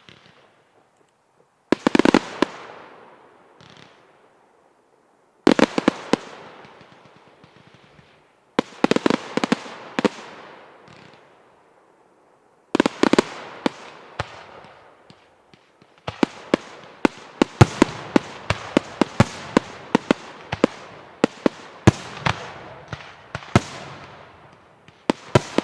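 Fireworks display: four separate salvos of sharp bangs, each trailing off into crackle, then about two-thirds of the way through a continuous, rapid barrage of bangs.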